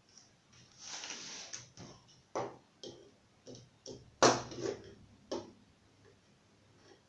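Irregular clicks and taps of small plastic and metal laptop parts being handled during a hard-drive swap, with a short scraping rustle about a second in and the loudest click a little after four seconds.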